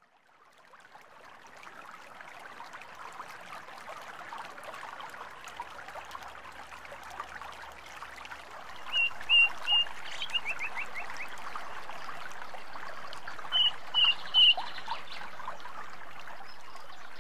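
Countryside ambience fading in: a dense background of faint chirping. Over it a bird twice gives a loud call of three short, high notes, the first time followed by a quick run of falling notes.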